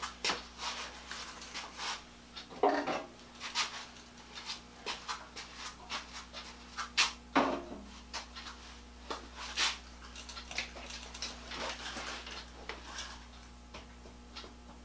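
Irregular clatter, clicks and knocks of tools and objects being handled and moved about on a workbench, with a couple of heavier thuds.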